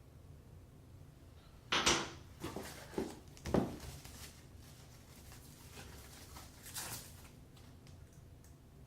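Faucet packaging and parts being handled: a quick run of knocks and rustles starting about two seconds in, with one more brief rustle near the end.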